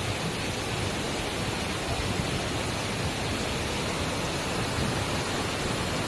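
Waterfall in flash flood, swollen with muddy runoff after a night of heavy rain, its water pouring over the rocks in a steady, unbroken rush.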